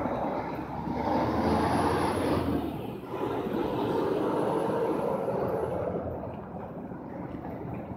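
Road traffic: vehicles passing close by in two swells of noise, each with a faint high whine, dying down about six seconds in.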